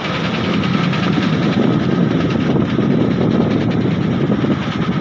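A car driving along a road: steady engine and road noise with no break.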